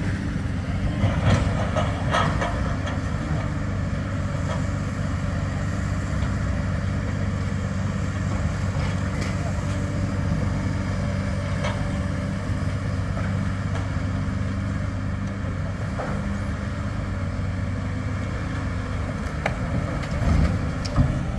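Demolition excavators' diesel engines running in a steady low rumble, with occasional short knocks and clanks from the work.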